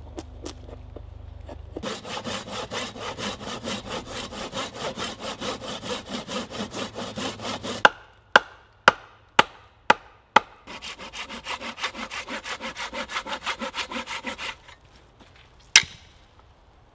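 A hand saw cutting into a fresh-cut timber post in quick, even back-and-forth strokes. Partway through, the sawing gives way to six sharp axe chops about half a second apart, chopping out a notch. The sawing then resumes and stops, followed by one last sharp knock.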